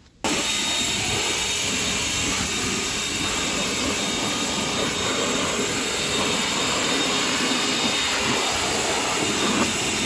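Air blower running at full blast, a steady hiss that starts abruptly just after the start, blowing packed hay and dust out of a hay baler.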